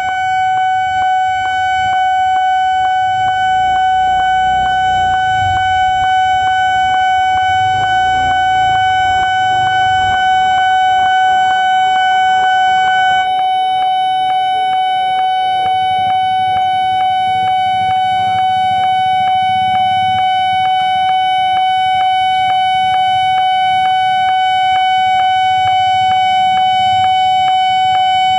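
Railway level-crossing alarm at a KRL commuter-line pedestrian crossing, sounding very loud: a steady, piercing electronic tone with a regular pulse, switching on abruptly. A low rumble sits underneath.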